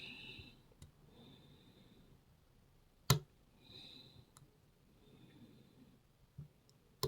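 Lock pick and tension wrench working in a small pin-tumbler cabinet lock: faint, high scratching of the pick in the keyway, with a sharp click about three seconds in and another near the end.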